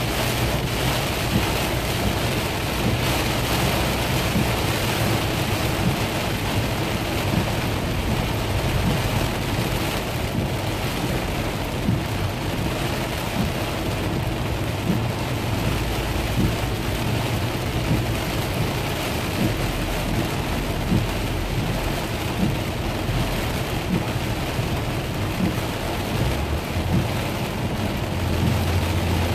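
Heavy rain pelting a car's windshield and body, heard from inside the moving car, with a steady low road-and-engine rumble underneath.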